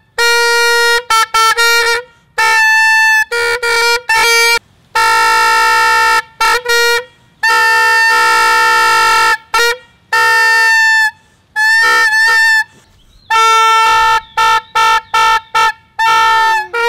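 Howling horn toy blown by mouth: an aluminium-foil membrane vibrating in a plastic whistle, its note sent out through a long yellow plastic cone. It sounds a loud horn note in a rapid series of short toots and several longer blasts, the longest about two seconds.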